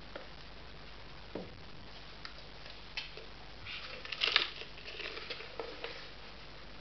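A paper fried-chicken bucket being handled and moved over a tabletop. There are a few light clicks, then a short cluster of scrapes and crinkling taps about four seconds in, which is the loudest part.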